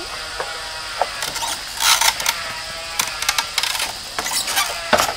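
Bamboo gate and fence rattling and knocking as they are handled and the gate is opened: scattered clicks, then bursts of wooden clatter about two seconds in and again near the end.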